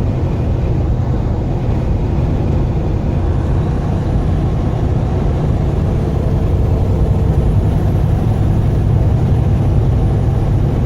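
Steady low drone of a semi-truck driving on the highway, engine and road noise heard from inside the cab.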